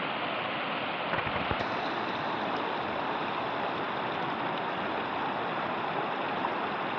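Fast river water rushing over rocks in shallow rapids, a steady even rush, with a few faint knocks about a second in.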